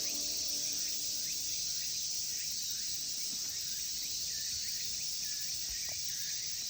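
Steady chorus of summer insects, a dense high hiss with faint short chirps over it, cut off suddenly near the end.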